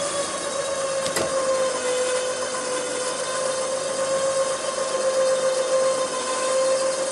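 Badlands 12,000 lb electric winch running under heavy load as it reels in synthetic rope, pulling a heavy oak log up onto a trailer: a steady motor whine that sags slightly in pitch around two seconds in, with a single sharp knock about a second in.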